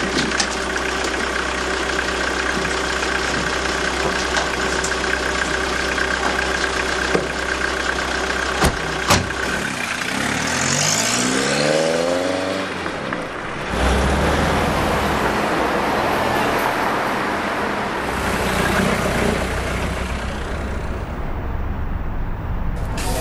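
Taxi engine idling with a steady hum and two sharp knocks about nine seconds in. Then an engine rises in pitch as it accelerates, and even street traffic noise follows.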